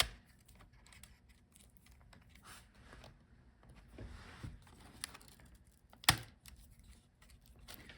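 Scattered light clicks and taps of small plastic and metal laptop parts being handled as cable connectors are unplugged from a laptop motherboard, with one sharper click about six seconds in.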